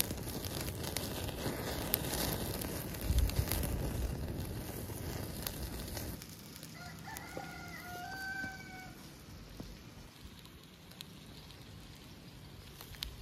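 Wood fire burning under chicken skewers, crackling and popping loudly for about the first six seconds, then quieter. About seven seconds in a rooster crows once, a bending call of two to three seconds.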